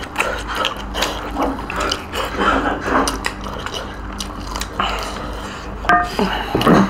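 Close-up eating sounds of roast duck curry and rice eaten by hand: chewing, lip smacks and the wet squelch of fingers mixing rice, a quick scatter of small clicks throughout. A brief squeak comes about six seconds in, and the loudest wet burst just before the end.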